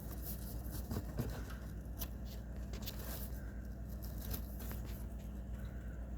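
Steady low hum of a large agricultural spray drone's rotors working over the field, with scattered clicks and rustling on top.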